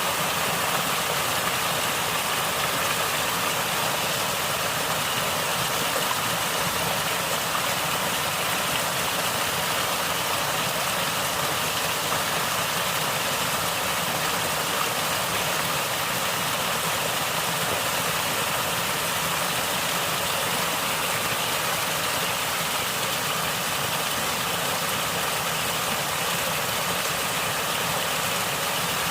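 Natural water flowing and gurgling, a steady, even rush with no breaks.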